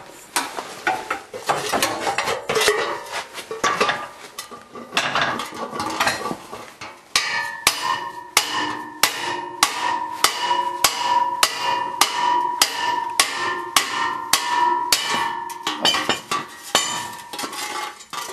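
A metal tube struck again and again on its end, sharp knocks that ring on. The knocks are irregular at first and settle into a steady beat of about two a second.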